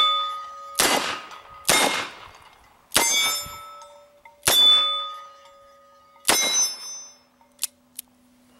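Five shots from a Smith & Wesson Model 10 .38 Special revolver, spaced one to two seconds apart. Each is followed at once by the ringing of a struck steel plate target, which fades over a second or so.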